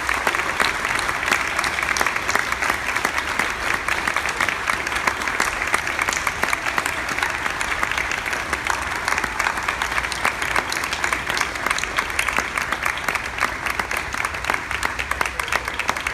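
Large audience applauding, a dense steady clatter of many hands clapping that eases off slightly near the end.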